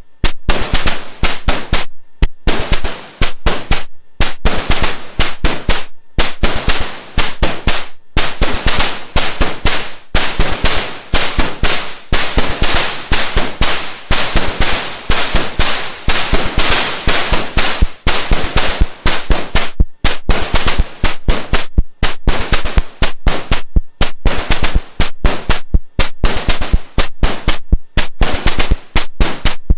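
Hive Mind Synthesis SODApressed Eurorack noise percussion module playing a fast sequenced pattern of static-like noise hits. The hits are broken by short gaps about every two seconds and run almost unbroken for several seconds in the middle.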